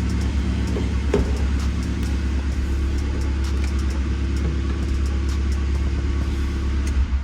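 Skoda Fabia 1.2 petrol engine idling just after a cold start, a steady low exhaust rumble through the newly fitted rear silencer. It still sounds kind of loud, which the owner puts down to cold starting rather than an exhaust leak. The sound cuts off suddenly near the end.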